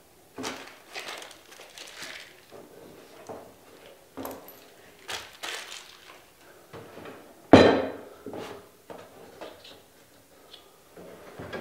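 Handling noises of a Ridgid EB4424 oscillating edge belt/spindle sander on a wooden workbench: scattered clicks, scrapes and knocks. The loudest is one heavy thump about seven and a half seconds in, as the sander is set down.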